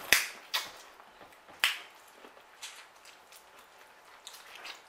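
Eating sounds: wet smacks and clicks from biting into and chewing a cob of butter-sauced corn. A few sharp smacks come in the first two seconds, then fainter scattered clicks.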